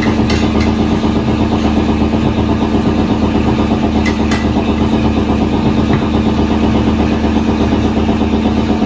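A motor running steadily, a loud even hum with a few faint clicks.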